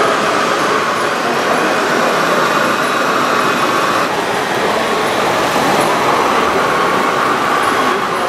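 Steady whine and hum of the small electric motors of radio-controlled model construction machines, including the model crawler crane. The motor tone shifts about four seconds in.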